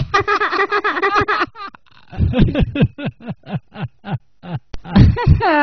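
A person laughing: a high-pitched run of laughter, then a string of short 'ha' pulses, each falling in pitch, about four a second.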